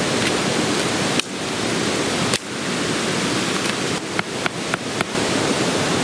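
Steady rushing of flowing water, with several sharp knocks and snaps as sticks of firewood are chopped with a deba kitchen knife and handled, a cluster of them between about four and five seconds in.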